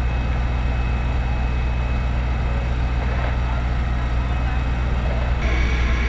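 Fire engines running at a standstill: a steady low engine drone with a thin, steady high whine over it. The sound changes abruptly near the end.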